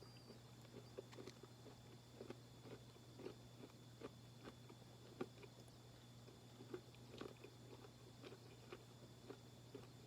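A person chewing a chewy peanut granola bar: faint, soft chewing sounds about twice a second.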